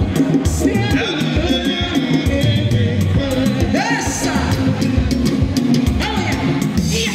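Live band playing an upbeat dance number with a steady beat, and women singing through microphones over the sound system.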